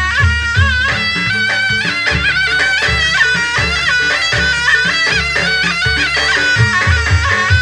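Javanese jaranan ensemble music: a reedy wind instrument plays a wavering, ornamented melody over a steady pattern of low drum strokes.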